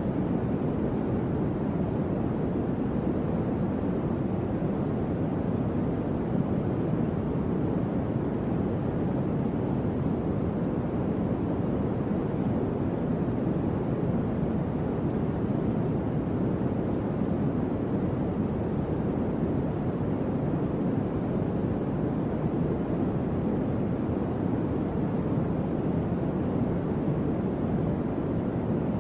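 Electric fan running steadily: an even, low whooshing of moving air that does not change.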